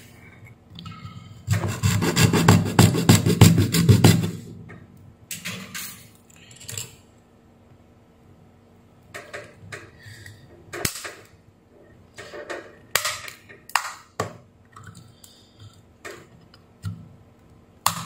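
Screwdriver blade scraping and prying along the seam of a plastic AC adapter case to split it open. About two seconds in there are a few seconds of loud, rapid scraping, followed by scattered short scrapes and clicks.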